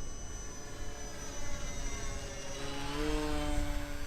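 Brushless electric motor and propeller of an RC Cessna 182 model airplane whining in flight. Its pitch slides down, then holds steady near the end.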